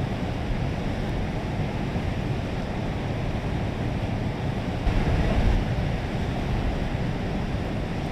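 Steady rush of river water with wind buffeting the microphone, and a stronger gust about five seconds in.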